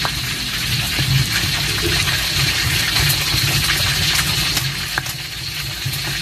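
Stone pestle (ulekan) grinding and scraping chillies and garlic against a stone mortar (cobek) for sambal bawang: a continuous scraping and crushing with a few small clicks.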